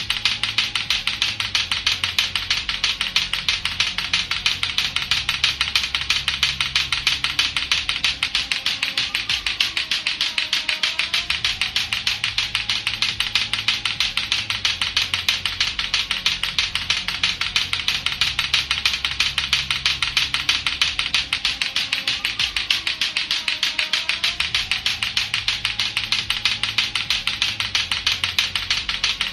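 Latto-latto clacker balls: two hard plastic balls on a string knocking together in a fast, even, unbroken clacking.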